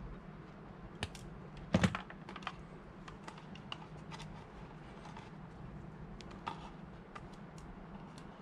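Scattered small clicks and taps of hands and pliers working wires and a plastic tube fitting on a reverse-osmosis booster pump in a plastic enclosure. A louder cluster of knocks comes about two seconds in, over a faint steady low hum.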